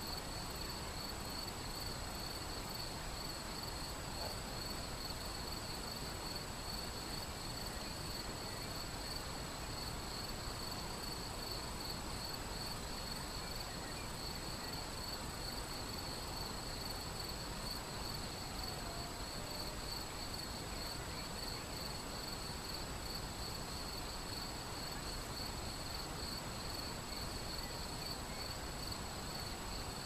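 Shallow river flowing over a stony riffle, a steady rushing that never changes. Over it runs a continuous high-pitched chirring of insects.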